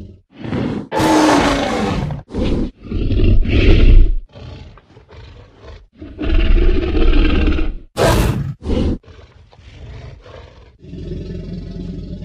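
Tyrannosaurus rex roar and growl sound effects: a string of separate calls with short gaps between them. The loudest come about a second in, with a falling pitch, and again around six and eight seconds. A steady low rumble follows near the end.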